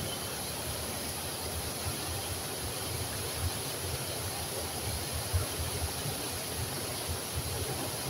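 Water rushing steadily over a low, wide river cascade and pouring onto the pool below, a continuous even hiss with a gusty low rumble underneath.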